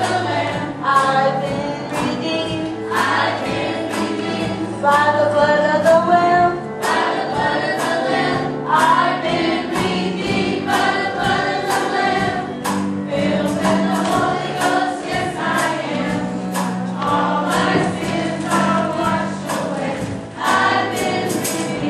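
Children's church choir singing a gospel song together, over low sustained instrumental accompaniment and a steady beat.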